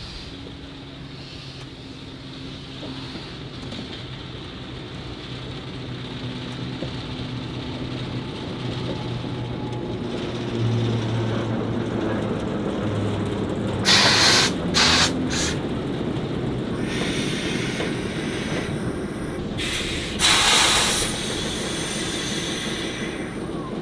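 Steam locomotive standing in steam: a low hum builds over the first half, then three short loud blasts of escaping steam come just past the middle. Hissing follows, and another loud blast about a second long comes near the end.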